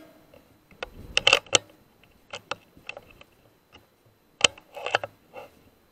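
A run of sharp metallic clicks and knocks from a sub-12 ft·lb air rifle being handled and cycled after a shot. There is a cluster of clicks between one and two seconds in, scattered single ticks after that, and a sharper click about four and a half seconds in, followed by a further short cluster.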